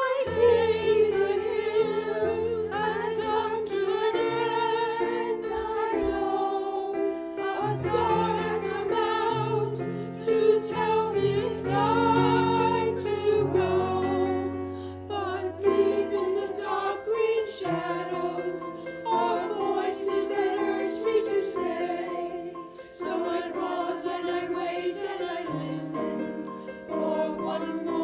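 A small amateur choir singing a song together with piano accompaniment.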